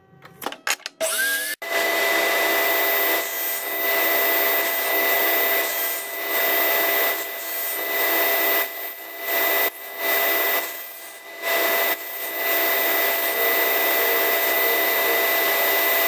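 Power tool motor spinning up, then running steadily while rabbets are cut in wooden box sides; its sound dips briefly every second or two.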